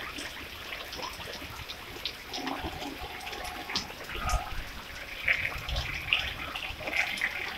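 Steady rain falling on a wet road, with the splash of many separate drops.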